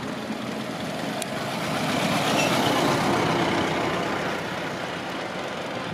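Veteran brass-radiator Ford Model T open tourer driving past close by. Its engine and tyres grow louder to a peak about two to three seconds in, then fade as it goes away.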